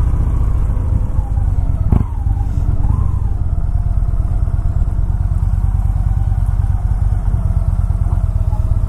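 Motorcycle engine running at low road speed, heard from the rider's seat as a steady low pulsing rumble, with one sharp click about two seconds in.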